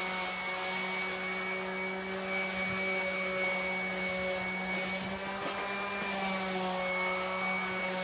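Electric orbital sander with an 80-grit hook-and-loop sanding disc running steadily against carved wood: a steady motor hum over the rasp of the paper.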